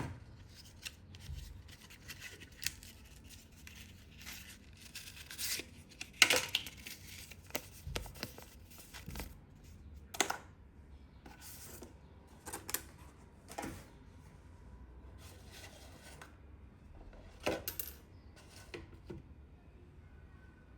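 Unboxing handling sounds: scattered sharp clicks and taps with short stretches of rustling as the packaging and the mouse are handled. The loudest tap comes about six seconds in.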